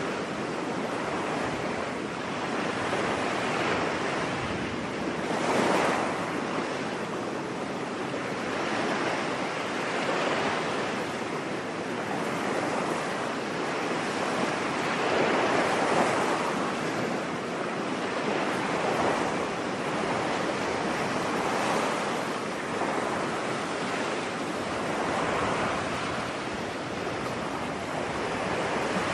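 Ocean surf washing onto a beach: a steady rush of breaking waves that swells and eases every few seconds.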